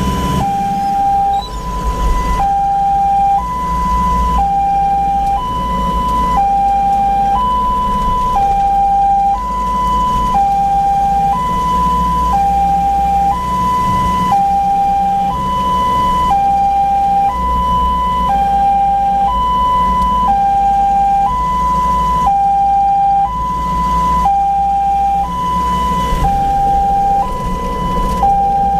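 Ambulance's two-tone hi-lo siren, switching between a higher and a lower note about once a second, heard from inside the cab over the low hum of the engine and road.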